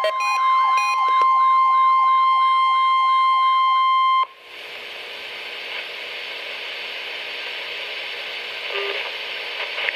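Weather radio alert tone: a steady tone of about 1,050 Hz with a second tone wavering up and down about three times a second over it. Both cut off abruptly about four seconds in and give way to a steady radio hiss.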